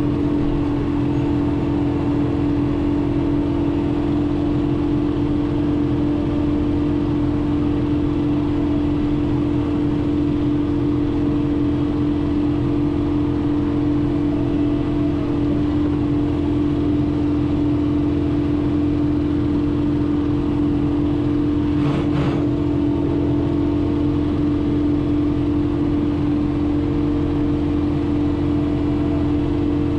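John Deere 4066R compact tractor's diesel engine running steadily under load, driving a PTO flail mower as it mows a woodland trail, as one even, steady drone. One sharp knock comes about three quarters of the way through.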